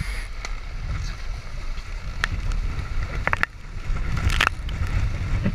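Nacra 14 catamaran sailing fast in strong wind: wind buffeting the microphone over water rushing and splashing past the hulls, with a few sharp slaps and clatters as the sail swings across the boat, the loudest about four seconds in.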